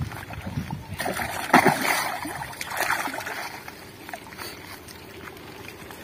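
A big catla thrashing at the surface as it is drawn to the bank on a fishing pole, splashing the water in a run of bursts, loudest about a second and a half in, then quieting down over the last couple of seconds.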